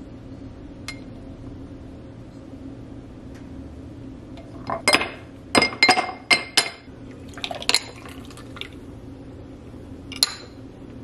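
Ice cubes dropped by hand into a tall drinking glass, clinking against the glass and each other: about half a dozen sharp clinks in quick succession from about five seconds in, a few more shortly after, and one last clink near the end.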